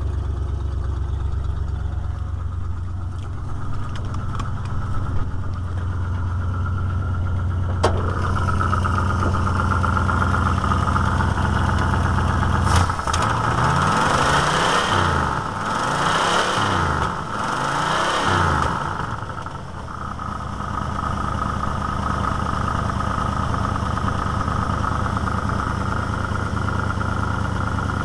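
Ford 351 Windsor V8 with a Holley four-barrel carburetor idling steadily, then revved up and let fall three times in a row about halfway through, with the throttle worked by hand at the carburetor, before settling back to idle.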